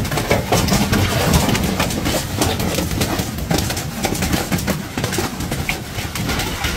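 Hailstorm: hailstones pelting down in a dense, irregular clatter of sharp impacts on vehicles and ground.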